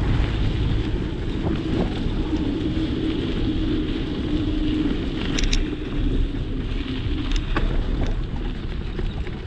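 Bicycle tyres rolling over a dirt and gravel track, picked up through a handlebar-mounted camera as a steady rumble with wind on the microphone. A few sharp rattles from bumps come about halfway through and again a couple of seconds later.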